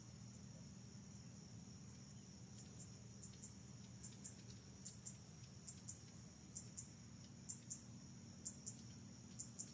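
Faint, steady, high-pitched insect chorus. From about three seconds in, short chirps come in pairs and repeat.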